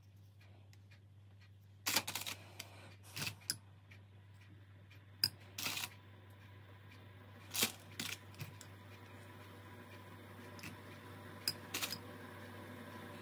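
Quiet handling noise: scattered small clicks and taps from hands handling things close to the microphone, over a faint steady low hum.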